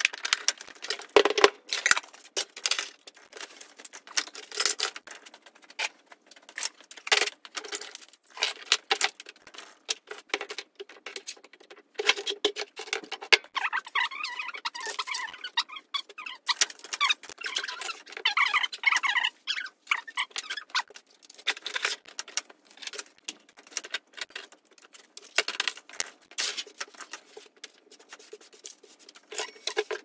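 Sped-up clatter of tools, tins and a plastic tool case being picked up, moved and set down on a wooden workbench: a quick, dense run of clicks and knocks, with high, wavering squeaks through the middle.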